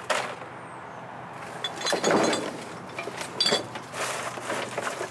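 Trash being shifted and knocked about in a dumpster: a series of knocks and clatters, the loudest about two seconds in, with a couple of bright ringing clinks a little past the middle.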